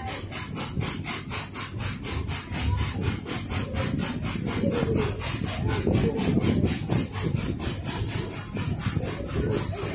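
Narrow-gauge steam locomotive working along at a steady pace, its exhaust chuffing in a fast, even rhythm of about four to five beats a second over the low rumble of the train running on the rails.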